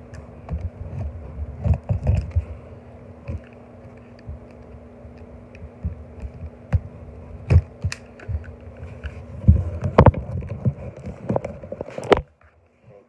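A cardboard mailing box being handled and cut open with a red retail safety box cutter. Irregular knocks, scrapes and rustles, heaviest toward the end.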